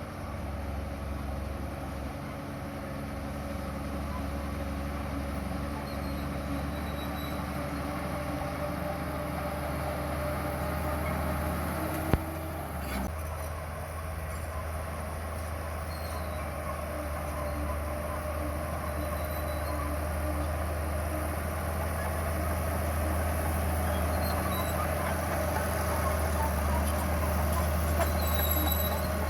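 Bulldozer's diesel engine running steadily, with one sharp knock about twelve seconds in.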